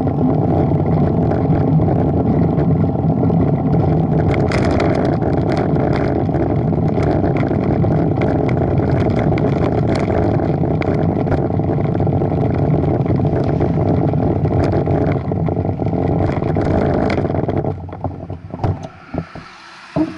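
Steady wind and road rumble on the microphone of a camera riding along the road, with scattered light ticks. The rumble falls away sharply near the end as the rider slows and stops, and a few light knocks follow.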